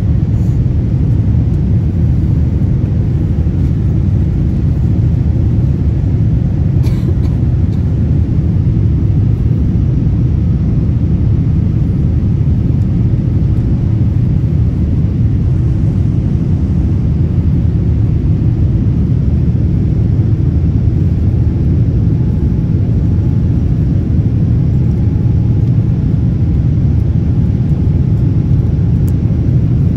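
Steady low rumble of jet engine and airflow noise inside an airliner's cabin during the climb after takeoff.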